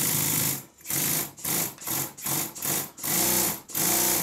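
Stuart Double 10V twin-cylinder vertical model steam engine running on compressed air, its regulator opened and closed over and over so that it runs in bursts of about half a second. It speeds up and slows down with each burst, showing a quick response to the throttle.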